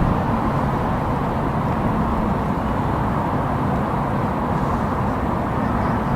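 Steady low outdoor rumble of background noise, even in level throughout.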